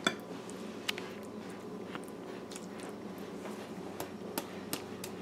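Slotted metal spoon spreading a wet, cheesy macaroni mixture in a baking dish: soft squishing with a few light clicks of the spoon against the dish, the sharpest right at the start. A faint steady hum underneath.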